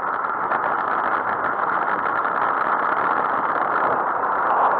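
Steady rushing wind and road noise picked up by a camera on a moving bicycle, mixed with motor traffic on the road.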